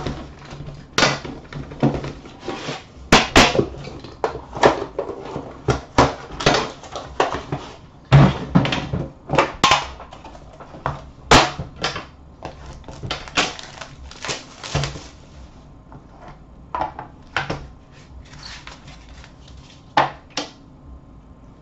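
Upper Deck The Cup hockey card boxes being handled and opened by hand on a glass counter: irregular knocks, taps and scrapes of cardboard boxes and lids. They come thick and fast at first and grow sparser from about two thirds of the way in.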